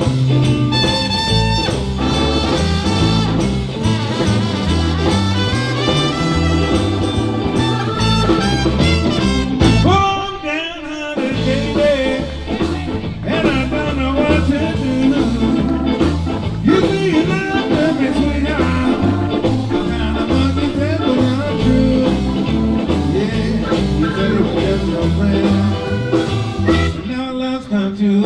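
Live band playing through PA speakers: electric guitar over bass and drums, with a short break in the bass and drums about ten seconds in.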